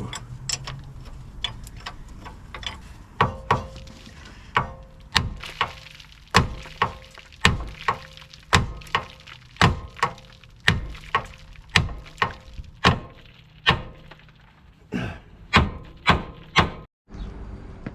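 A hammer strikes steel again and again, about two blows a second, each blow with a short metallic ring. This is knocking the lower ball joint free of the Honda Civic's front suspension.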